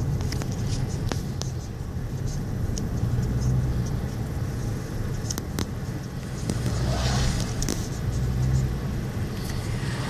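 Steady road and engine rumble inside a moving car's cabin, with the hiss of an oncoming car passing about seven seconds in and another right at the end.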